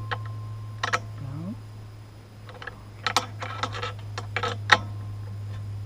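Irregular sharp metal clicks and taps as a tool tightens the screw of a chainsaw bar's oiler nozzle, most of them in a quick cluster past the middle, over a steady low hum.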